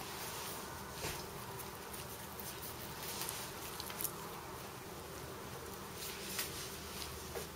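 Hands rolling a scallion-filled sheet of dough into a log on a floured wooden board, giving soft rubbing and a few light taps over a steady low hum.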